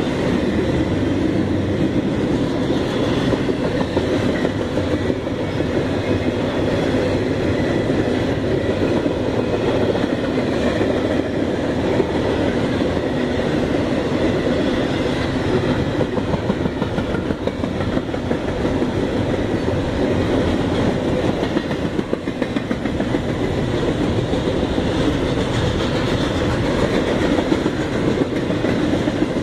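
Double-stack container cars of a freight train rolling past at a steady level, a continuous rumble of wheels on rail.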